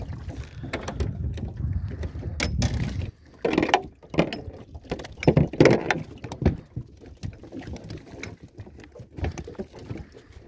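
Wind rumbling on the microphone for about three seconds, then it stops abruptly. After that, knocks and clatter in an aluminium boat as a freshly caught corvina is brought aboard and unhooked, the loudest knocks coming in two clusters around the middle.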